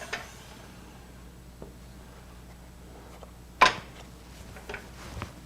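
Handling knocks as a wooden workpiece is fitted against a jam chuck on a stopped wood lathe: one sharp knock about three and a half seconds in, with a few fainter clicks around it.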